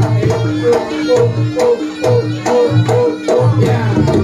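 Reog Ponorogo gamelan ensemble playing: drum strokes over struck, ringing gong tones that repeat in a fast, steady rhythm.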